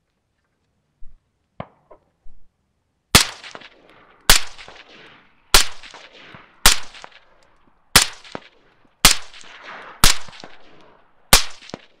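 A few faint clicks, then eight suppressed shots from a short-barrelled 5.56 AR-15 fitted with a homemade Form 1 suppressor, fired at a steady pace of about one shot a second. Each shot is a sharp crack followed by a ringing echo that dies away before the next.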